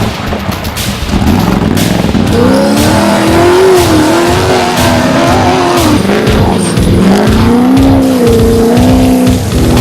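An off-road race vehicle's engine revving up and down as it drives, its pitch rising and falling from about two seconds in, with background music underneath.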